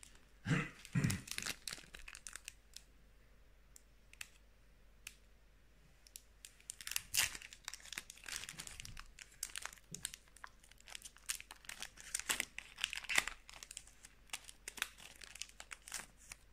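Foil Pokémon Celebrations booster pack wrappers crinkling as they are handled, and a pack being torn open, in irregular crackling bursts: one about half a second in, a busier stretch around seven to nine seconds and another around twelve to thirteen seconds.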